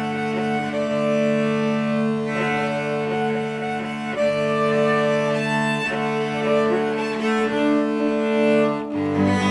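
String ensemble playing slow, held chords of a Christmas piece, the chord changing about every two seconds, with a short break near the end before lower notes come in.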